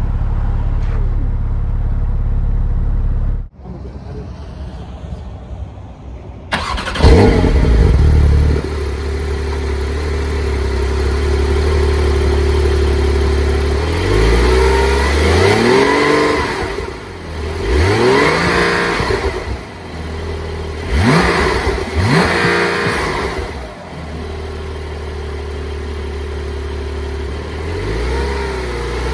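Porsche 911 Turbo S's twin-turbo flat-six with the sports exhaust switched on. It idles, goes quiet about three seconds in, then comes back about seven seconds in with a loud flare that settles to a steady idle. It is then revved several times in short blips before returning to idle, with a smaller rev near the end.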